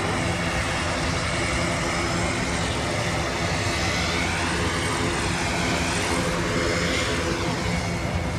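Large Airbus aircraft's engines droning steadily during a display flypast, with a high hiss that sweeps up and down in pitch as it passes.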